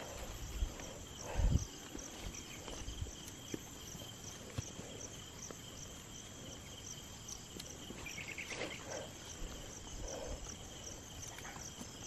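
Insects chirping steadily: a high trill with regular pulses about three a second. Over it come soft rustling and a few dull thumps, the loudest about a second and a half in, as a sack of freshly dug sweet potatoes is handled.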